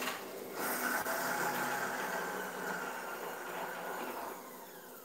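Electric mixer-grinder running with its steel jar, grinding a green chutney of coriander leaves, garlic, ginger and green chillies. The motor whirs steadily, then its pitch and level fall as it winds down near the end.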